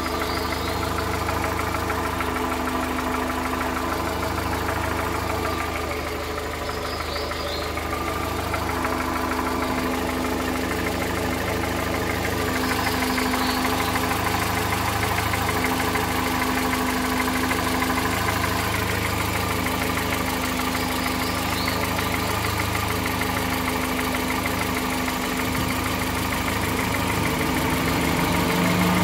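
Volkswagen Voyage EA111 petrol engine idling with a strange noise from the bottom end of the engine. The engine note holds steady, then shifts slightly near the end.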